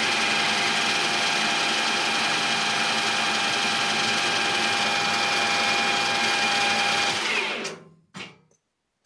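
Metal lathe running while a carbide-insert tool faces off the end of a 12 mm stainless steel rod: a steady, even whine from the spinning chuck and drive. About seven seconds in the lathe is switched off and the whine falls away as the spindle spins down, followed by a couple of faint clicks.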